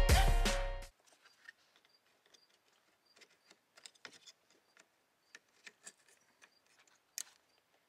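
Background music fading out within the first second, then faint scattered clicks and taps of hands handling plastic parts and an electrical connector, with one sharper click about seven seconds in.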